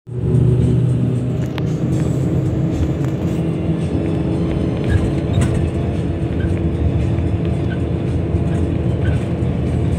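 Bus engine hum and road noise heard from inside the cabin while driving, steady throughout.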